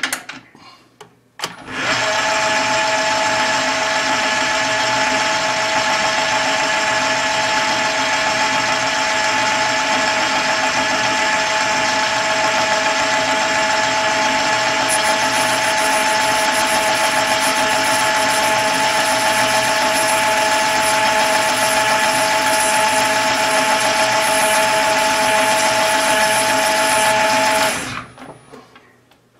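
Metal lathe running with a steady whine while a carbide tool turns down the outside rim of a brass blank held in a collet. It starts about a second and a half in, a higher hiss joins about halfway through, and it stops near the end.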